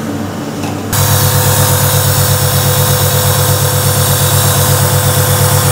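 Compressor nebulizer switched on about a second in, then running with a steady low buzzing hum and a hiss of air as it turns liquid medicine into mist for a face mask.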